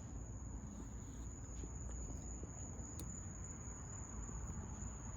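A steady, unbroken high-pitched tone over low rumbling room noise.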